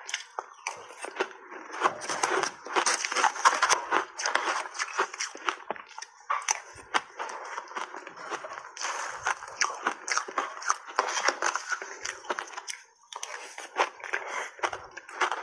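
Close crunching and crackling of mango-flavoured ice being bitten and chewed, with a metal spoon scraping and chipping into the frozen ice cake in between. The crunching breaks off briefly near the end.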